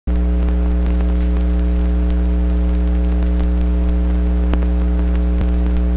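Steady electrical hum from a 16mm film print's soundtrack, starting abruptly, with light hiss and scattered clicks and pops, one sharper click a little after halfway.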